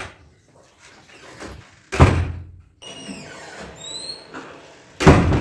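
Bathroom door being opened and shut: a latch click at the start, a loud thump about two seconds in, squeaking hinges in the middle as the door swings, and another loud thump near the end.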